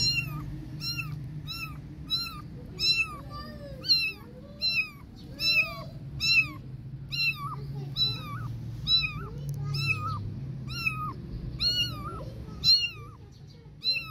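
Young kittens meowing over and over, short high-pitched mews about one and a half a second without a break: the calls of kittens separated from their mother.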